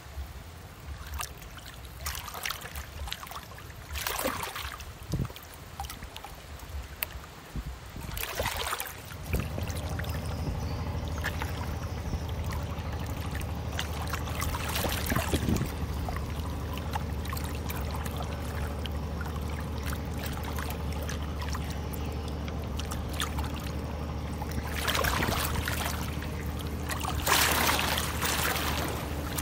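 Rain and water splashing and rushing past a ship's bow, swelling and fading several times. About nine seconds in, a steady low engine drone from a passing vessel sets in under the water sound, with more swells of rushing noise near the end.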